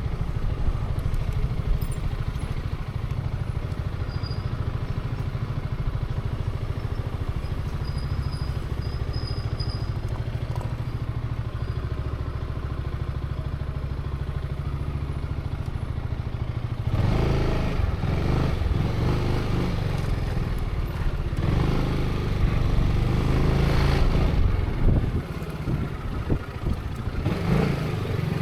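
Zontes 350E scooter's single-cylinder engine running at low riding speed, steady at first. From a little past halfway it gets louder and rougher with shifting pitch, then eases off near the end.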